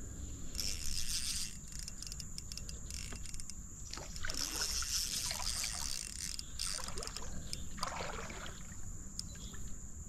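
Creek water splashing and trickling in uneven bursts, over a steady high insect chirring.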